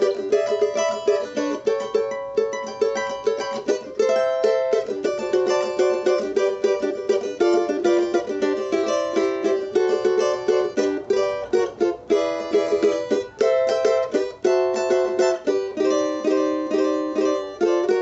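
Solid-top cavaquinho strummed in a quick, steady rhythm through a run of changing chords, with an open, mid to lower-mid tone.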